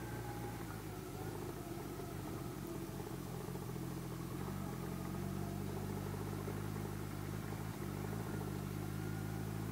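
Kawasaki 1400GTR motorcycle's inline-four engine running steadily while the bike is ridden along a rough dirt track. Its pitch shifts slightly a few times.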